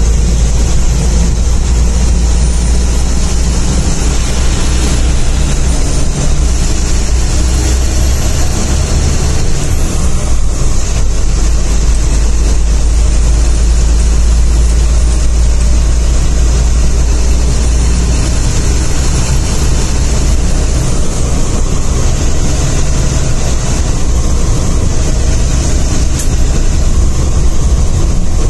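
Bus engine running with a steady low drone under continuous road noise, heard from inside the driver's cabin while the bus is under way.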